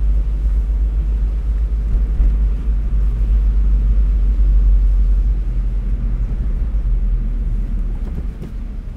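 Daihatsu Copen LA400K, a small turbocharged three-cylinder kei convertible, driving with its roof open: a steady low rumble of engine and road noise.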